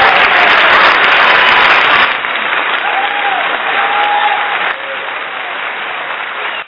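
Crowd applause, loud at first, dropping in volume in two steps, then cutting off abruptly at the end.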